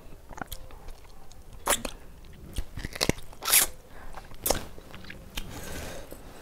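A person chewing a mouthful of food close to the microphone, with several sharp crunches; the loudest crunch comes about three and a half seconds in.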